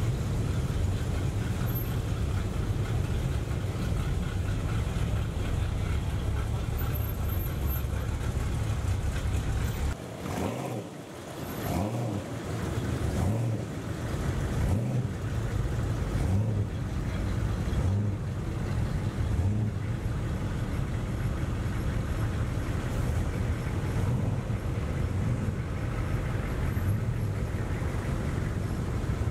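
Classic Chevrolet pickup trucks rolling past at walking pace one after another, their engines running with a steady low rumble. The rumble drops away briefly about ten seconds in, then builds again as the next trucks come by.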